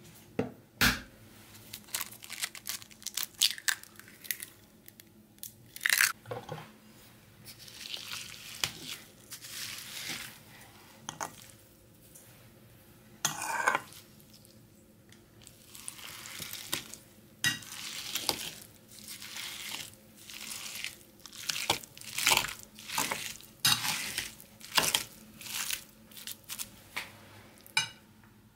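A metal potato masher working cottage cheese in a ceramic bowl: irregular clinks and knocks of the masher against the bowl, with short scraping and squishing spells as the curd is mashed.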